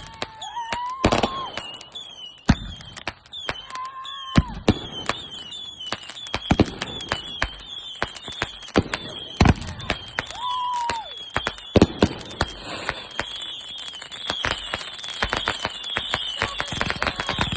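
Fireworks going off: many sharp bangs and crackles in quick succession, with a few short whistles and repeated high chirps among them.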